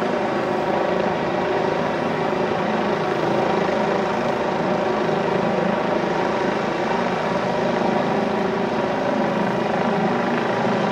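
Boeing 747-400 freighter's four jet engines running steadily at low power as it taxis, a constant rumble with a held whine and no spool-up.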